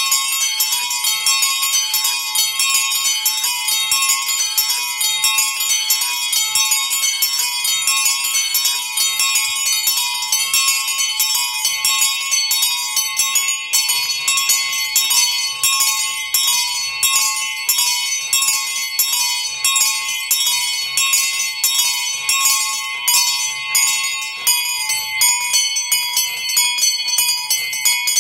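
Small bronze bells of a miniature motor-driven bell tower swinging and pealing, their clappers striking over and over so the strikes of several bells overlap in a continuous ringing. The strikes come out sharper and more distinct in the second half.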